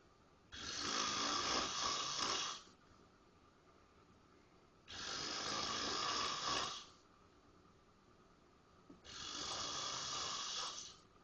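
A man asleep on a couch, snoring loudly: three long rasping snores of about two seconds each, coming roughly every four seconds with quiet breaths in between.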